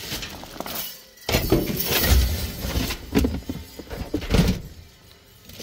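Hands rummaging through rubbish in a large wheeled waste bin: plastic bin bags rustling and loose items knocking against each other and the bin walls, with a few dull thuds.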